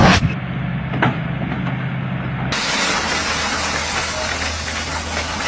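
Engine running steadily under a hiss, with a sharp click about a second in; the sound changes abruptly about two and a half seconds in.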